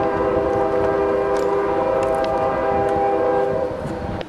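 Train horn sounding one long, steady chord over the low rumble of a passing train. It fades and stops just before the end.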